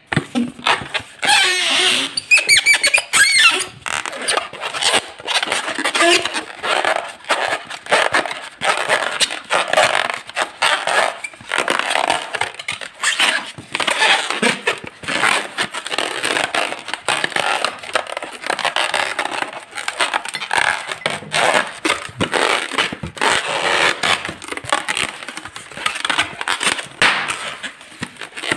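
Long latex modelling balloon being twisted and squeezed by hand, its rubber squeaking and rubbing in a continuous irregular run of squeaks.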